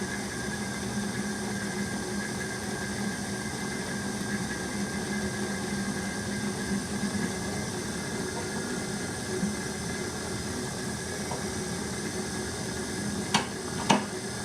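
Pacifica Glide Torque 400 pottery wheel running on its four new drive belts after a belt-tension adjustment: a steady motor-and-belt hum with a few held tones. Two sharp knocks come near the end.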